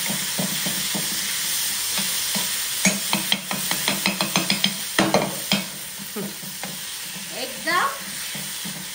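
Steel spatula scraping and tapping on an iron tawa as a masala is stirred and fried in butter, over a steady sizzle. From about three seconds in, the scrapes and taps come quick and sharp for a few seconds, then ease off.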